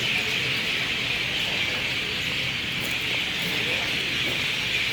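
Dense, steady chatter of a huge flock of birds roosting together in a banyan tree, hundreds of calls blending into one continuous high din.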